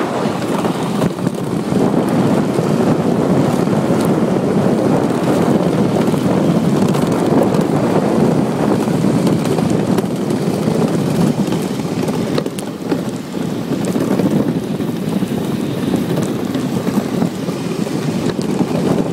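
DN iceboat sailing at speed over pond ice: a steady rush of wind buffeting the microphone, mixed with the runners running over the ice, with a slight dip in loudness a little past the middle.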